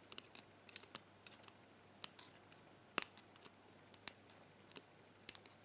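Metal tweezers clicking and tapping against a lock's pins and chamber in a string of sharp, irregular clicks, while a stuck pin is being worked out.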